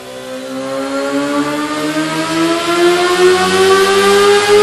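Honda CBR1000RR inline four-cylinder engine running through a MIVV Speed Edge aftermarket exhaust silencer, its revs climbing steadily and smoothly. It gets louder as the revs rise, peaking near the end.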